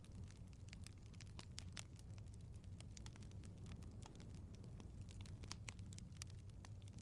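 Wood fire in a fireplace crackling softly, with frequent small irregular pops over a low steady rumble.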